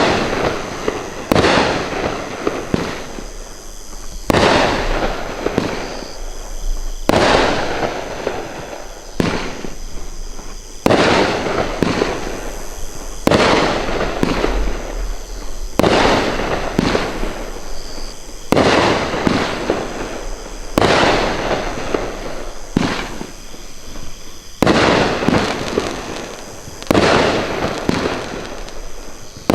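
Bright Star 'Traffic Jam' 500-gram fireworks cake firing shot after shot, about one every two seconds, each a sharp report trailing off into crackling.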